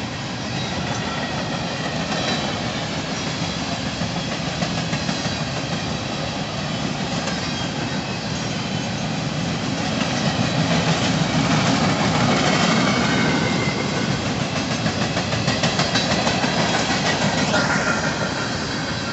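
Empty coal cars of a freight train rolling past: a steady rumble of steel wheels on the rails, with a rhythmic clickety-clack of the wheels over the rail joints, growing louder from about ten seconds in.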